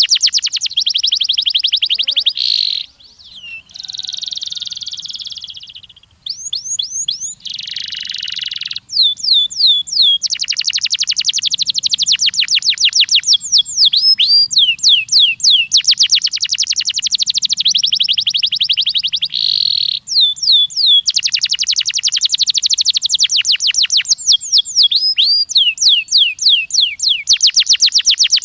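Domestic canary singing: long trills of fast, high-pitched repeated notes, many per second, changing from one run to the next, with a couple of buzzy, rasping rolls in the first third.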